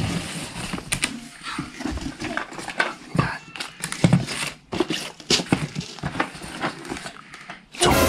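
Cardboard toy boxes and crumpled packing paper being shifted about inside a cardboard shipping box: irregular rustling with frequent light knocks and clicks.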